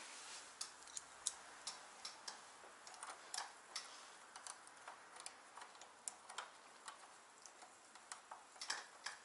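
Faint, irregular small metallic clicks and ticks from a hand driver turning the bolts of a steering-damper bracket on an electric scooter, the bolts being snugged only lightly for a temporary fit.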